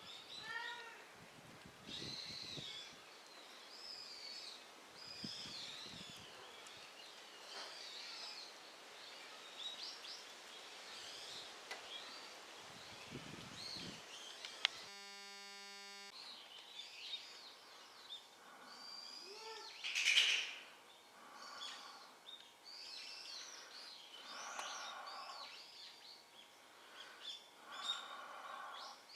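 Small birds chirping and calling over and over, short rising and falling notes, with one louder call about two-thirds of the way through. A brief steady electronic buzz about halfway through.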